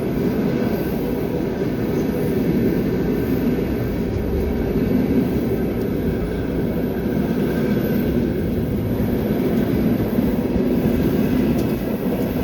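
Passenger train running steadily on the rails, heard from on board: a continuous low rumble of wheels and carriage.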